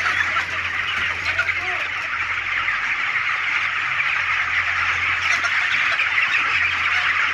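A large flock of 28-day-old broiler chickens calling all at once, a dense, continuous chorus of chirps and clucks. A low steady hum runs underneath.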